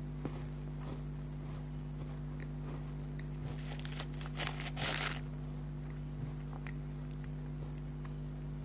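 Close-up crunching and chewing of chocolate biscuits, with a short run of loud crunchy bites about halfway through and faint chewing clicks around it. A steady low electrical hum runs underneath.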